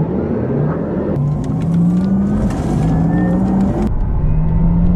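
Genesis GV60's synthesized electric-car driving sound playing through the cabin speakers: a pitched electronic hum that climbs and steps, over tyre and road noise while accelerating on the highway.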